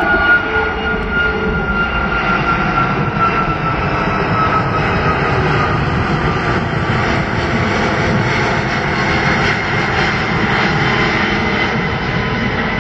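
Four Rolls-Royce Trent 500 turbofans of an Airbus A340-500 climbing out after take-off: a loud, steady roar with a fan whine that slowly falls in pitch over the first few seconds as the jet passes.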